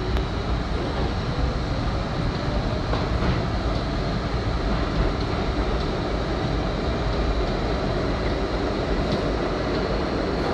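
R32 subway train running through a tunnel with a steady rumble and rattle of wheels on rail. A whine rises in pitch during the first couple of seconds as the train gathers speed out of the station.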